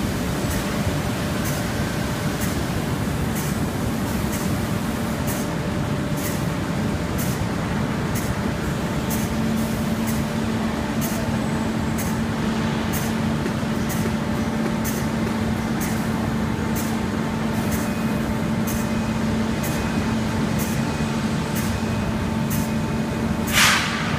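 Steady machinery noise of an automated sand-core production cell with industrial robots and core machines. Sharp clicks repeat about every half second, a steady low hum sets in about a third of the way through, and a short loud hiss comes near the end.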